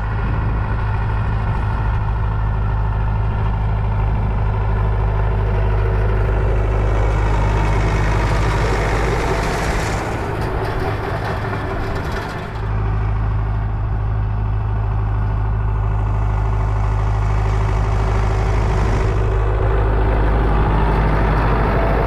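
David Brown 995 tractor's four-cylinder diesel engine running steadily under load as it pulls a PTO-driven rotary hay rake; the sound dips briefly about halfway through, then carries on.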